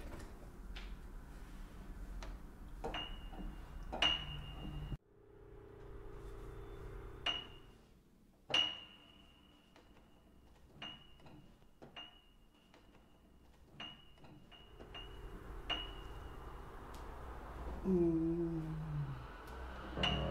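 A single high piano key tapped again and again at uneven intervals, about ten times, each strike ringing briefly on the same high note.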